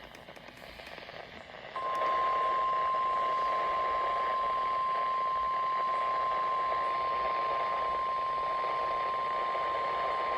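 Radio static hiss, then about two seconds in the NOAA Weather Radio 1050 Hz warning alarm tone comes on suddenly: one steady beep held over the hiss for the rest. It is the attention signal that announces an alert broadcast, here a Tornado Watch.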